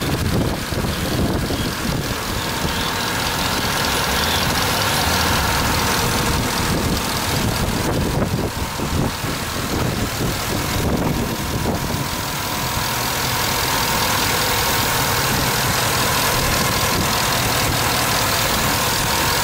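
GM L94 6.2-litre V8 idling steadily, heard close up under the open hood.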